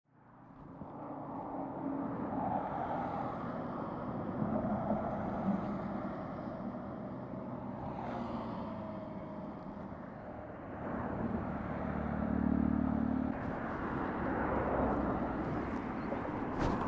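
Yamaha YZF R6's inline-four engine running through a de-catted Akrapovic slip-on exhaust at low revs. The sound fades in over the first second, and the engine grows louder for a couple of seconds about twelve seconds in.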